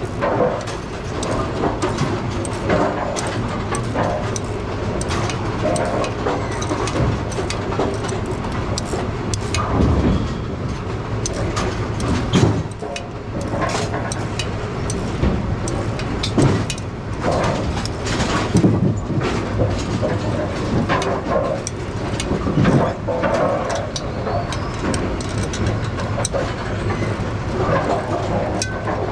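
Steady machinery hum with frequent metal clanks and knocks, as parts of a pinsetter shaft assembly are taken apart by hand.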